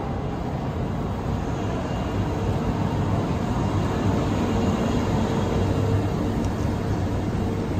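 Train rolling slowly past at close range: vintage passenger coaches and then the EF64 electric locomotive, a steady running noise. A steady hum grows in about halfway through as the locomotive draws level.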